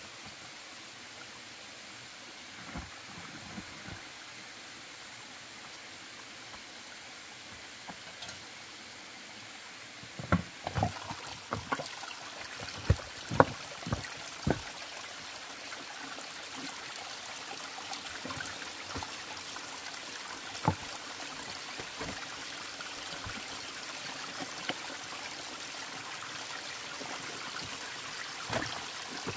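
Steady rush and trickle of running water, like a stream. About a third of the way in comes a quick run of sharp knocks, with single knocks later and near the end.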